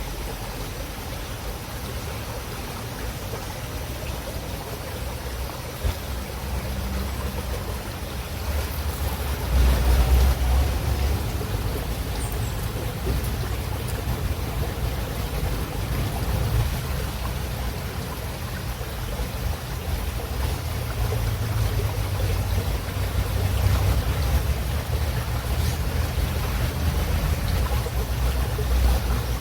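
Running water of a calm river flowing steadily, with a deep low rumble that swells briefly about ten seconds in.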